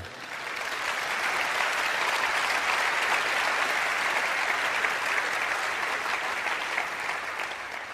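Audience applauding, building over the first second, holding steady, then fading out near the end.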